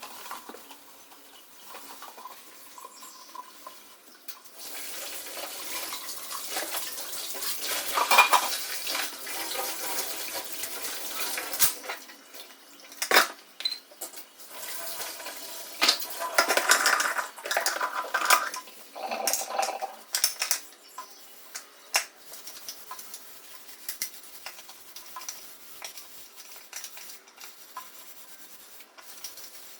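Dishes and utensils clinking and knocking while being washed, with tap water running for several seconds in the first half.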